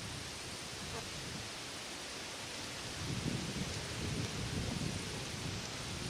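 Steady outdoor hiss with wind gusts rumbling on the microphone, starting about three seconds in and coming and going.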